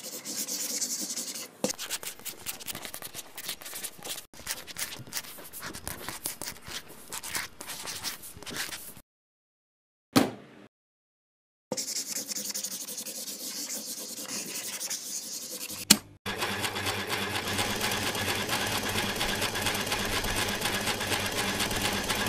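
Sound effects of garment-making. First several seconds of rubbing and scratching, then a single sharp click, a stretch of hissing machine noise and a thump. The last six seconds are a machine running steadily with a fast, even rhythm, like a sewing machine stitching.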